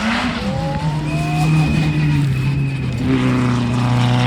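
Rally car engine running hard at high revs on a gravel stage, growing louder as the car approaches, with brief shifts in pitch as it changes gear.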